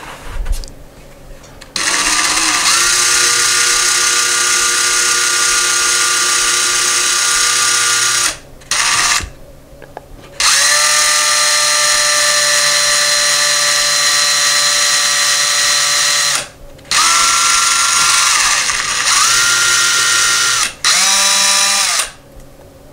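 Cordless brushless drill with a small pilot bit, run slowly into drywall in two long stretches of about six seconds and then three short bursts that spin up and down. The bit meets wood behind the wall where no stud was expected.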